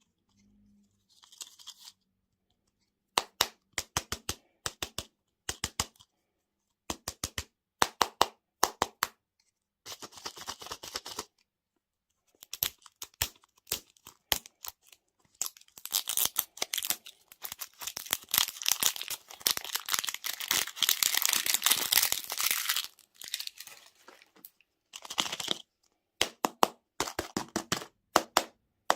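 Plastic candy wrappers being crinkled and torn open: short bursts of sharp crackling, then a long stretch of continuous crinkling about halfway through, then more short crackles near the end.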